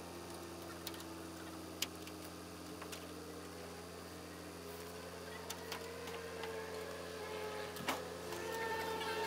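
Engine of a recovery telehandler idling with a steady low hum, with a few light clicks and knocks and a faint rising whine in the middle.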